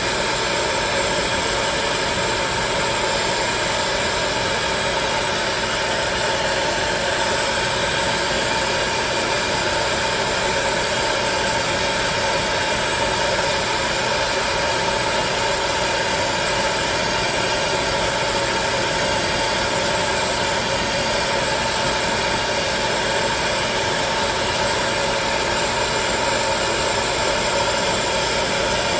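Hot-air popcorn popper's fan motor running steadily, a constant whine over rushing air, blowing hot air.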